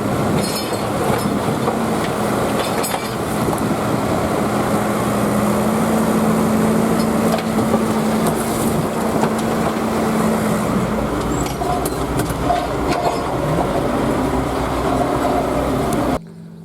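Diesel digger working: its engine runs steadily with scattered metallic clanks. The sound cuts off suddenly near the end.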